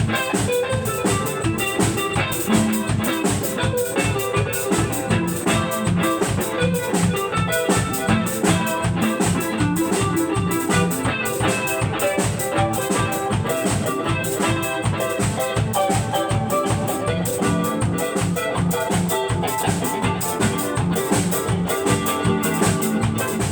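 Instrumental passage of an upbeat band song: a steady drum-kit beat under guitar and a bright, ringing melodic part.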